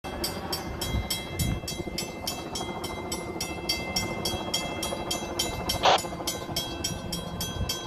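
Fire engine running, with a low rumble under an even, rapid clicking about three to four times a second and a few steady high tones. A short hiss cuts in about six seconds in.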